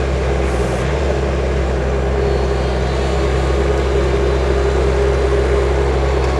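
Skid steer loader's engine running steadily at working speed with a constant low drone.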